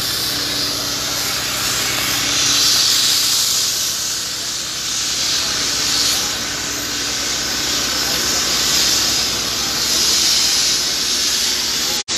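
Railway breakdown crane at work: a loud steady hiss that swells and eases every few seconds, over a low, steady engine hum. It cuts off abruptly just before the end.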